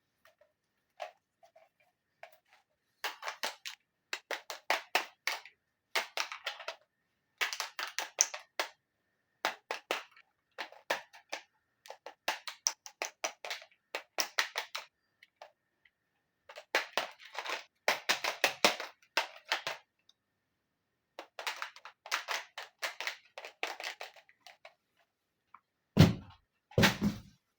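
Small plastic toy pieces being handled and set in place, in quick clusters of light clicks and taps with short pauses between them. Near the end come two heavier, deeper knocks.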